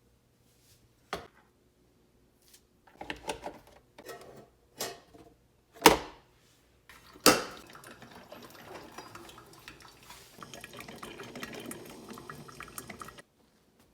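A few knocks and clatters of kitchenware being handled, then water running from a tap into a vessel for about six seconds, stopping abruptly.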